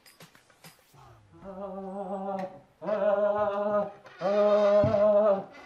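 A man's voice wailing in pain in three long, drawn-out, near-sung cries ('anam anam anam'), a lament about a badly hurt back. The cries start about a second and a half in.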